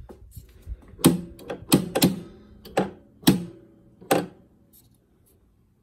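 Stepper unit of a 1948 Bally pinball machine, with a numbered wheel, being worked by hand: about six sharp metal clacks at uneven spacing, each with a brief metallic ring, then a few faint clicks.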